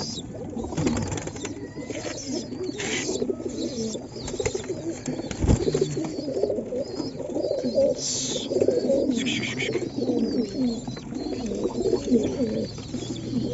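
A flock of domestic pigeons in a loft cooing continuously, with a few short rustles from the birds and a single knock about five and a half seconds in.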